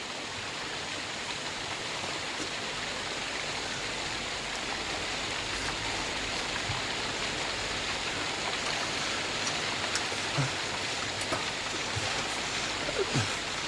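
Steady, even rushing hiss with no rhythm, with a few faint soft knocks in the last few seconds.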